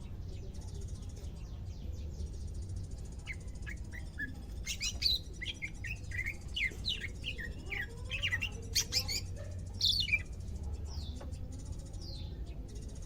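Caged cucak ijo (greater green leafbird) calling: a quick run of short chirps and whistled notes, rising and falling, starting about three seconds in and loudest in the middle. A newly kept bird beginning to sing actively.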